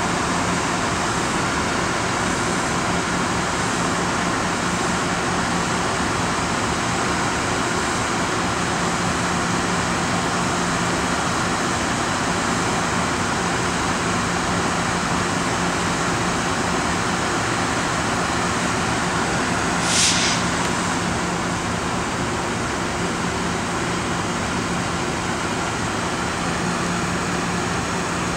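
A MARC commuter train moving slowly through the station, giving a steady rolling and running noise with a constant low hum. A short sharp hiss comes about 20 seconds in.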